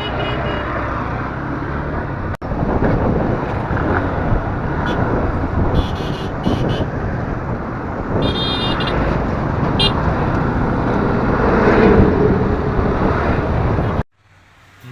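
Busy road traffic noise with vehicles passing, and short horn toots around the middle; it cuts off abruptly about a second before the end.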